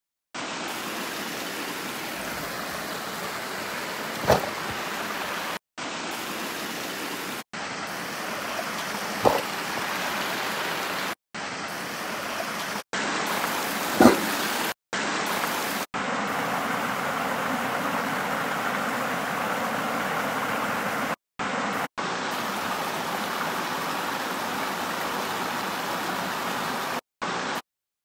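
Small creek running over rocks, a steady rush of water broken by several short dropouts. Three brief sharp knocks sound about 4, 9 and 14 seconds in.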